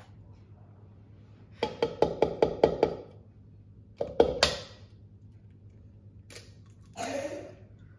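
An egg being tapped against the rim of a mixing bowl to crack it: a quick run of about eight light taps, then two harder knocks about a second later. A short, softer noise follows near the end.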